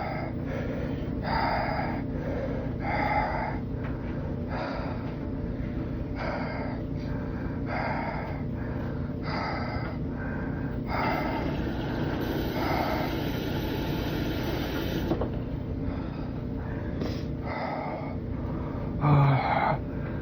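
Washing machine running through a wash cycle: a steady hum with a swishing burst about every one and a half seconds, one longer swish of about four seconds past the middle, and a loud thump near the end.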